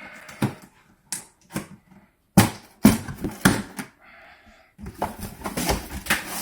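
Cardboard box and packaging being handled and worked at: a series of sharp knocks and crackles, then steadier rustling and scraping from about five seconds in.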